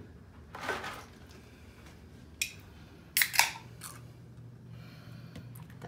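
A few sharp clicks and knocks of hard objects handled on a wooden table, the loudest a quick double clatter a little past halfway.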